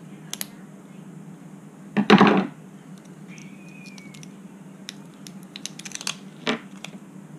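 Clear heat-shrink tubing being cut and peeled off a small FPV video transmitter board: one loud crackling tear about two seconds in, then scattered small plastic clicks and handling noise over a steady low hum.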